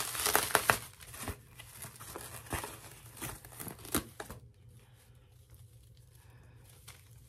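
Wig packaging crinkling and rustling as the wig is unwrapped from its net by hand, with sharp crackles, loudest at the start; it stops about four seconds in.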